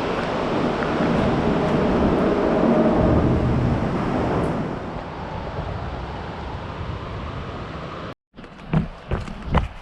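Steady road and wind noise of a moving car. After a cut near the end, quick regular running footfalls on a trail, about three a second.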